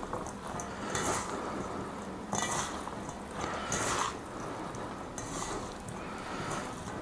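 Bare hands tossing and squeezing chopped spinach, tomato, onion and grated cheese in a stainless steel bowl: soft rustling swishes about every second and a half, with light brushes against the metal bowl.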